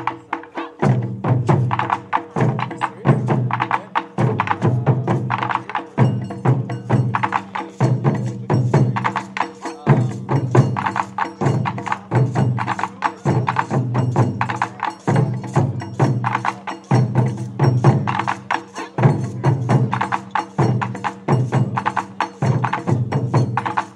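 Taiko drum ensemble playing a driving rhythm: deep drum strokes about once a second under fast, sharp clicking strokes.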